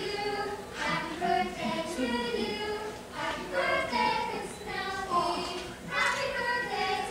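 Stage performers singing a song, in phrases with held, gliding notes.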